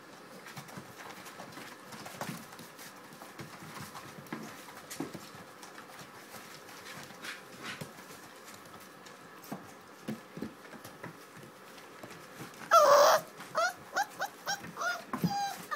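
Labrador Retriever puppies playing: faint scuffling and small clicks of paws, then about 13 seconds in a loud sharp puppy yelp followed by a quick string of short high yips and whimpers.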